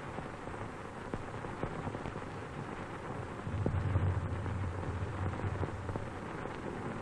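Hiss and crackle of an old optical film soundtrack, with a low rumble of thunder coming in about halfway through and lasting a couple of seconds.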